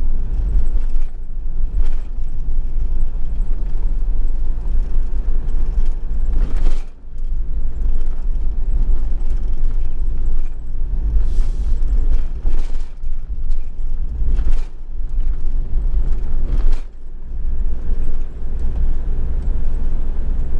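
Steady low rumble of a camper van driving along a highway: road and running noise, with two brief dips in loudness.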